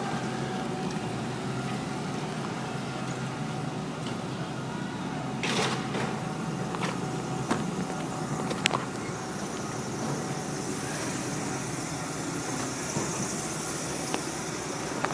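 City street noise: steady road traffic, with a few short clicks and knocks scattered through it and a rising hiss, like a vehicle passing, in the last few seconds.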